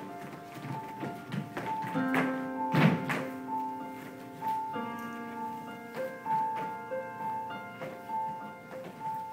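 Instrumental music with a melody of held notes, over thuds and taps of dancers' feet landing and stepping on the studio floor; the heaviest thud comes about three seconds in.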